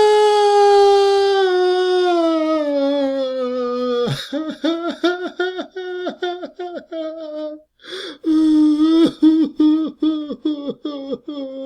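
Adult man crying: a long wail that slides steadily down in pitch, then breaks into quick, choppy sobbing whimpers. A sharp breath is drawn about eight seconds in, followed by more sobbing whimpers that settle into a held, lower moan.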